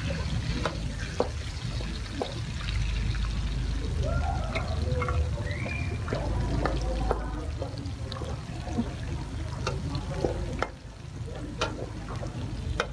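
Metal ladle stirring and scraping in a steel wok as garlic and chopped fresh pepper fry, with scattered clicks of the ladle striking the pan over a steady low rumble.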